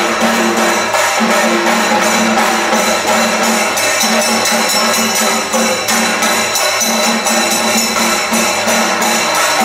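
Loud, fast Kerala percussion music: chenda drums beaten with sticks, with metallic jingling and a pulsing low tone underneath.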